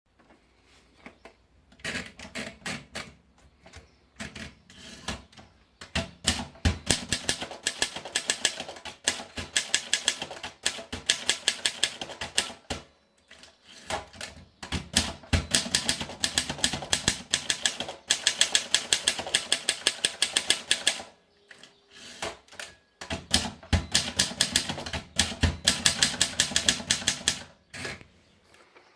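Groma Modell N manual typewriter being typed on: fast runs of key strikes clacking against the platen, in several bursts with short pauses between them.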